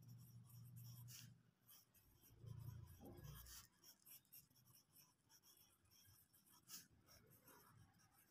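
Pencil writing on paper on a clipboard: faint, short scratching strokes as letters and numbers are written. A low hum comes and goes during the first few seconds.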